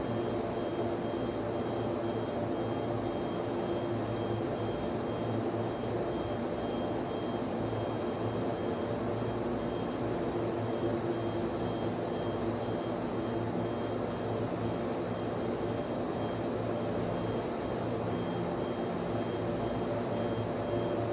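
Server room ambience: the cooling fans of servers and network switches running in a steady whir, with several constant low hum tones and a faint high whine.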